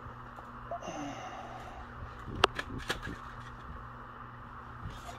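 Faint rubbing of a microfiber coating applicator being wiped along car paint, over a low steady hum. A sharp click comes about halfway through, followed by two lighter ticks.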